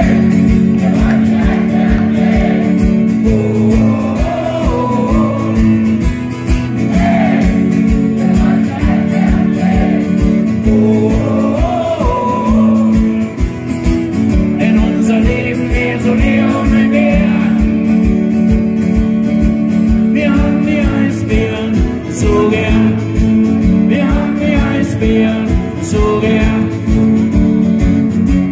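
Live acoustic band music: acoustic guitars strummed, with a voice singing a melody over a steady low beat.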